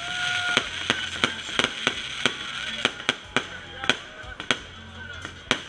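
Aerial fireworks firing in quick succession, with sharp cracks and bangs coming irregularly at about three a second. A short steady whistle sounds in the first half-second.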